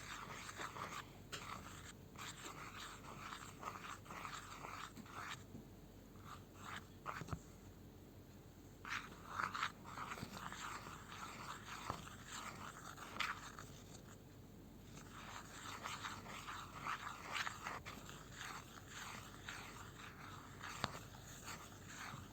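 Faint scraping and clicking of utensils and containers being handled while making slime, with a few louder knocks.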